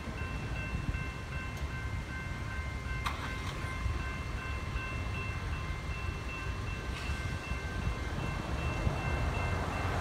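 Railroad grade-crossing warning bell ringing steadily, several ringing tones at once, while the crossing gates lift after the train has cleared. It stops near the end, over a steady low rumble of idling traffic.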